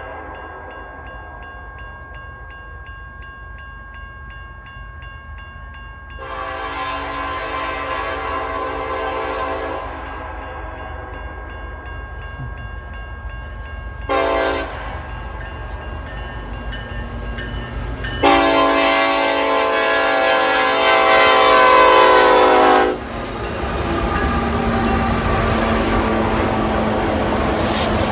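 Nathan Airchime K5LLA five-chime air horn on a BNSF EMD SD70ACE locomotive blowing a series of blasts. The tail of an earlier blast fades out, then comes a blast of about three and a half seconds, a short toot, and a long, loudest blast of nearly five seconds that cuts off sharply.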